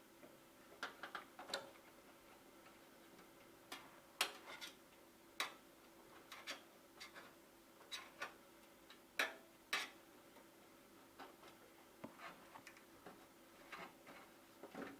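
Irregular light clicks and taps of hard plastic and tools being handled as an 80 mm case fan's plastic rivets and rubber mounts are worked loose and pulled out. The loudest clicks come about four and nine seconds in.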